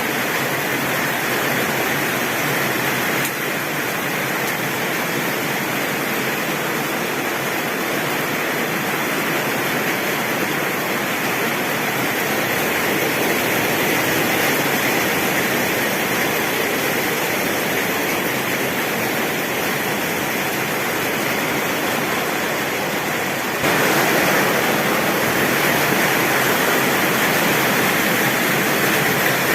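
Heavy rain pouring steadily on a tin roof, an even dense hiss with no thunder heard, stepping up slightly in level about six seconds before the end.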